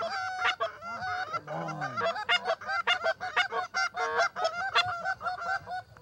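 Several hand-blown Canada goose calls honking and clucking in quick, overlapping succession, imitating a gaggle of geese, with one call close by. A lower falling note sounds about a second and a half in.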